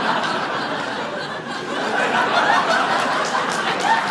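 Comedy club audience laughing, with scattered clapping joining in near the end.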